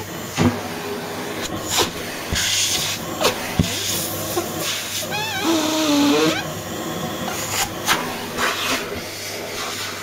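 Vacuum cleaner running, its round brush nozzle rubbing and scraping over a cotton sock, with a short warbling squeal a little past the middle.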